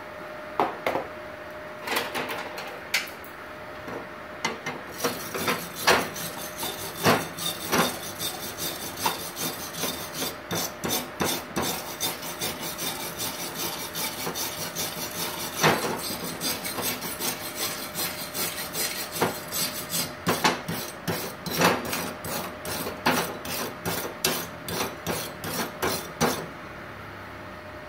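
A wire brush is scrubbed in quick, irregular strokes over a freshly welded aluminium plate, clearing slag from the gasless flux-core MIG weld. The strokes are sparse at first, come thick and fast after about five seconds, and stop near the end.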